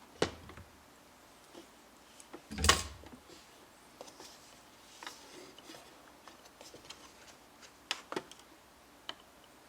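A few small knocks and clicks of grinder parts being handled and set into place, the loudest a knock about two and a half seconds in.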